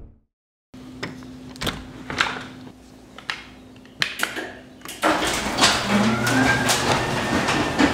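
Scattered knocks and clicks, then, about five seconds in, an electric garage door opener starts raising the door: a steady rattling run with occasional clunks.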